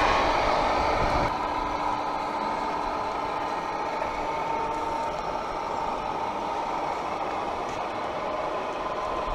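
Simulated engine sound from radio-controlled scale construction models' electronic sound modules: a steady drone through small speakers, a little louder for about the first second.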